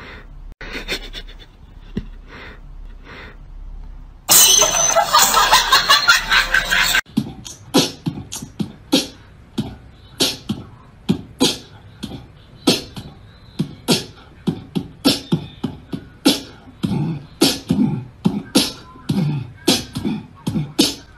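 A steady rhythmic beat of sharp percussive hits, about two a second, like beatboxing. It is preceded about four seconds in by a loud noisy burst lasting about three seconds.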